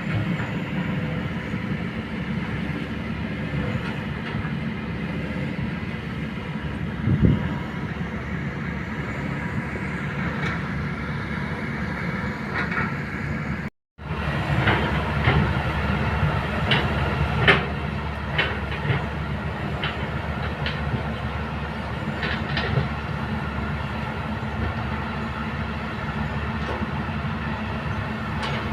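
Kobelco hydraulic excavator's diesel engine running steadily, with scattered metallic clanks and knocks from the machine working. The sound drops out for a moment just before the middle, and a cluster of sharper clanks follows.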